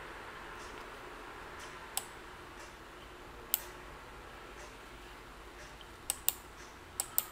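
Sharp computer mouse clicks over faint steady room hiss: single clicks about two and three and a half seconds in, then two quick pairs near the end.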